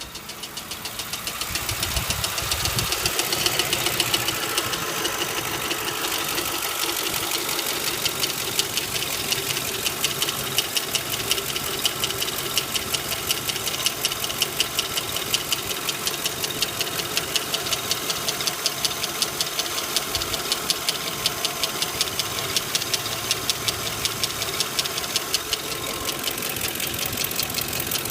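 Lincoln Town Car 4.6-litre V8 idling with a fast, even ticking over the engine note, a rattle the owner suspects may be a lifter. The sound rises over the first couple of seconds, then holds steady.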